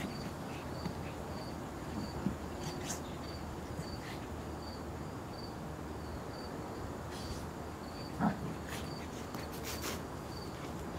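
Steady outdoor background with a short, high, insect-like chirp repeating evenly about twice a second. A few faint clicks, and a brief louder sound about eight seconds in.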